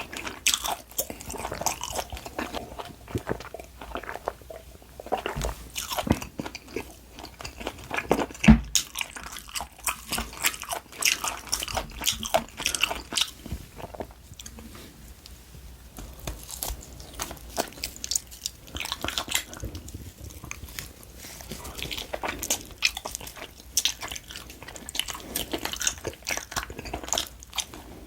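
Close-miked chewing and biting of grilled LA galbi, Korean marinated beef short ribs: a dense run of small wet clicks and crackles. There is a single louder knock about a third of the way in, and the chewing goes softer for a few seconds past the middle.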